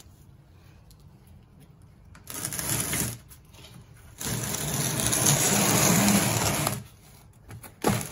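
Black plastic oil drain pan dragged over cardboard and a concrete floor: rough scraping in three stretches, the longest about two and a half seconds.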